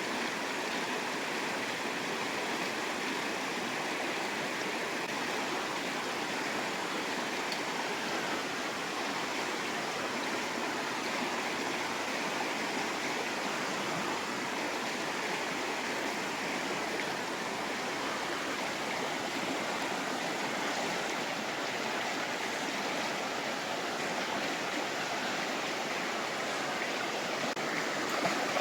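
Fast-flowing river rushing steadily, an even wash of water noise.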